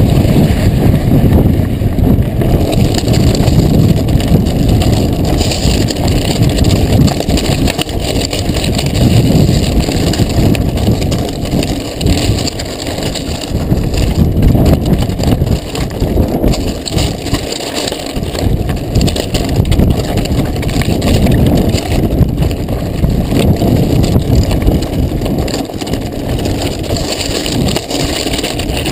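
Mountain bike ridden over loose volcanic rock and gravel, heard up close on the bike: a steady crunching of tyres on stones mixed with the rattle and knocks of the frame and parts over the rough ground.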